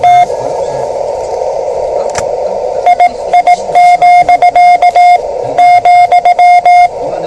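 Morse code (CW) from a Yaesu portable HF transceiver's speaker: a steady pitched beep keyed on and off in dots and dashes over the receiver's band-limited hiss. A short burst of Morse at the start, then about two and a half seconds of hiss alone, then a longer run of Morse from about three seconds in until near the end.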